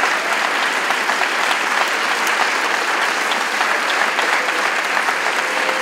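Audience applauding steadily, many hands clapping in a dense, even patter.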